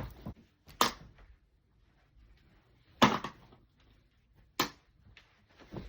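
Three sharp knocks, about a second apart to two seconds apart: one about a second in, the loudest about three seconds in, and one near the end. Between them it is quiet.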